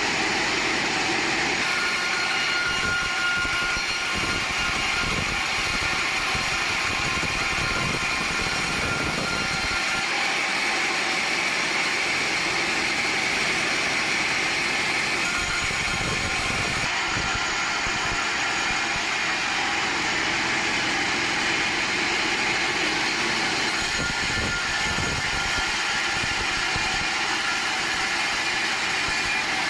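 Sawmill machinery running steadily: an engine-driven log saw. The sound shifts abruptly every several seconds.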